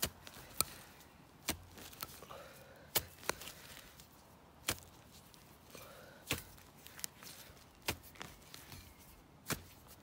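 A small hand digging tool chopping into crumbly soil: about a dozen sharp strikes at uneven intervals, with loose dirt scattering between them.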